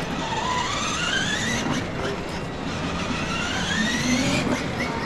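Battery-powered ride-on toy truck driving, its whine rising slowly in pitch twice as it speeds up.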